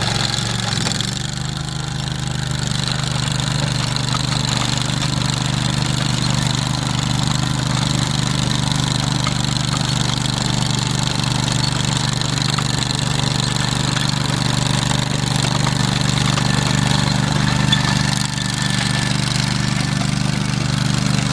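2007 Ditch Witch SK500 mini skid steer's engine running steadily at a constant speed.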